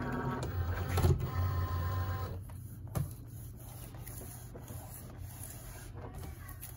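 Cricut cutting machine's motor whirring in two short runs, together about two seconds long, then a single sharp click about three seconds in.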